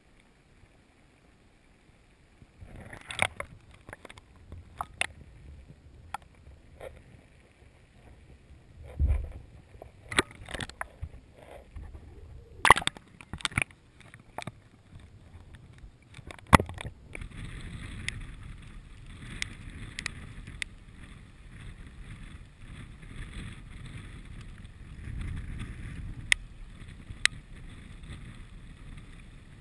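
Scattered sharp knocks and bumps over a low wash of water. From just past halfway, steady wind and the splash of choppy water.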